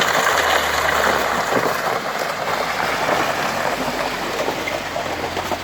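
A vehicle engine idling with a low, steady hum under a loud, even rushing noise.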